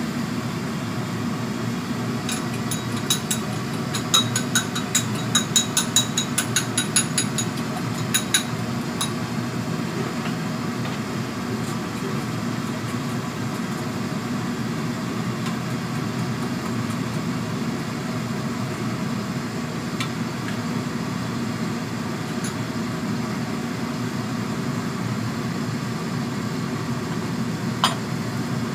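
Steady low hum of a lit gas stove with a lidded wok simmering on it. A quick run of light, ringing clinks comes between about 2 and 9 seconds in, and there is a single sharp tick near the end.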